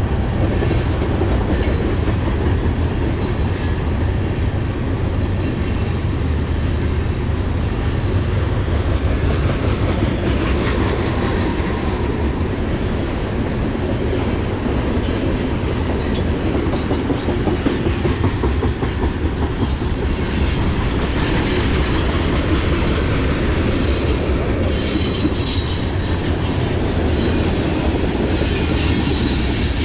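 BNSF manifest freight train rolling past, its cars making a steady rumble and rattle.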